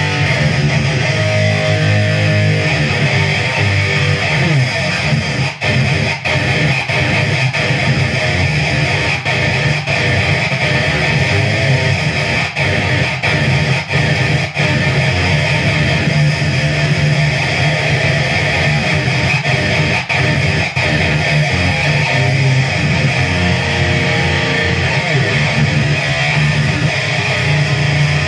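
Electric guitar played through a Randall RH300 G3 Plus hybrid head and speaker cabinet, with one preamp valve and a transistor output stage. The gain is set to 7 and the midrange heavily scooped. It plays heavy, distorted riffs with a few brief stops.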